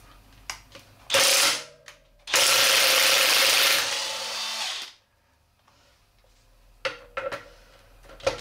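Cordless DeWalt impact driver with an impact socket undoing the rear sprocket nuts on a motorcycle wheel: a short burst about a second in, then a longer run of a couple of seconds that drops in level near its end. A few light metal clicks follow near the end.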